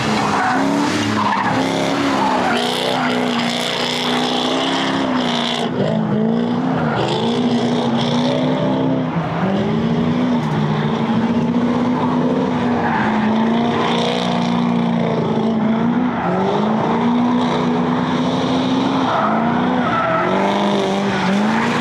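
Ford Mustang drift car sliding under power: the engine revs hard, its pitch dropping and climbing again every couple of seconds, over the steady screech of spinning, sliding rear tyres.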